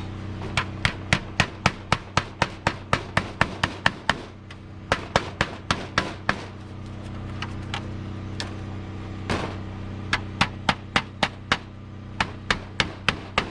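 Hand hammer driving nails into wood: runs of quick, sharp strikes, about three a second, broken by short pauses.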